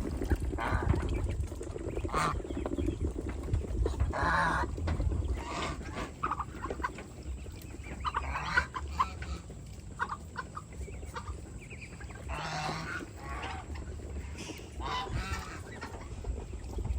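Domestic geese honking in scattered short calls, with other farm fowl calling among them, over a low steady rumble.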